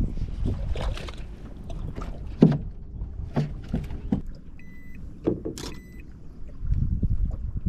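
Handling knocks on a bass boat deck as a smallmouth bass is landed, with a sharp thump about two and a half seconds in. A short electronic beep from a digital fish scale sounds about five seconds in, over a low wind-and-water rumble.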